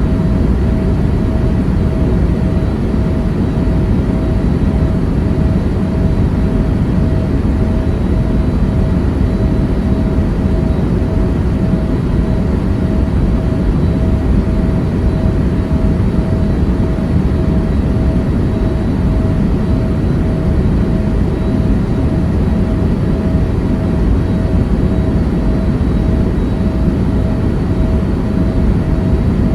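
Airliner cabin noise: a steady, loud low roar of engines and airflow with a faint pulsing hum above it, unchanging throughout.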